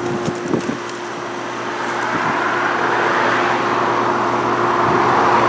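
Heavily frosted outdoor unit of a 2016 Ruud Achiever heat pump running in heating mode, not yet in defrost. Its compressor and fan give a steady hum, and a rush of air grows louder from about two seconds in.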